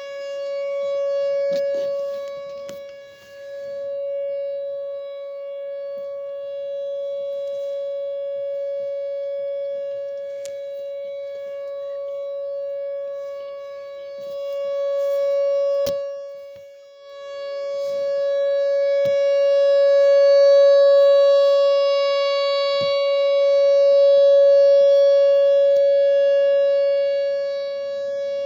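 Whelen WPS 4004 electronic outdoor warning siren sounding the Alert signal: one steady, unwavering tone. Its loudness swells and fades, dipping sharply twice, about 14 seconds apart.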